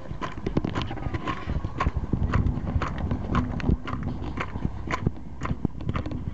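A crowd clapping in a steady rhythm, about two claps a second, over the low rumble of cars driving slowly past close by.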